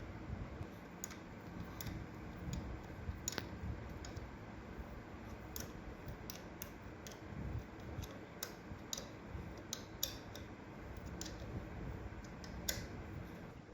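Irregular light clicks and taps, about seventeen of them with no steady rhythm, over a low steady rumble: small tools and parts being handled during work on a motorcycle carburetor.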